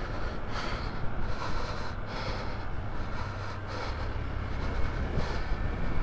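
Hero Xpulse motorcycle riding off-road, its engine running under a steady low rumble of wind on the microphone, with a few brief knocks.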